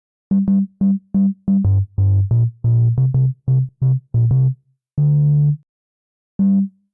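Synth bass loop played once: a run of short, clipped low notes that starts on a higher note and steps down lower, a longer held note about five seconds in, and one last short note near the end.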